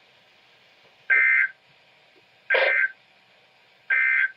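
Emergency Alert System end-of-message data bursts: three short bursts of digital data tones, about a second apart, that mark the end of the alert.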